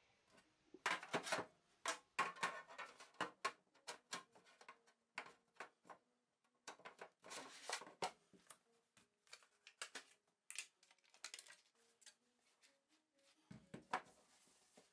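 Scattered light clicks, knocks and short rustles from a black metal loaf tin being handled on a wooden kitchen worktop, with a duller thump near the end.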